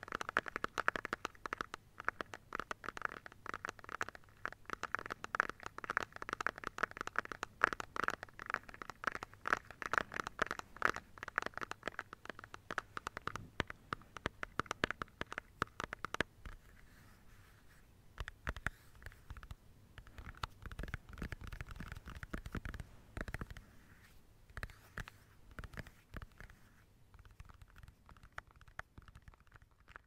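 Rapid tapping on plastic objects, dense and fast at first, then thinning to sparser, softer taps after about halfway and growing fainter near the end.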